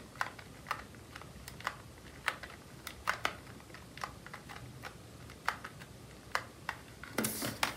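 Keys of a small plastic pocket calculator being pressed while adding up a column of figures: a run of light, irregular clicks, about one or two a second.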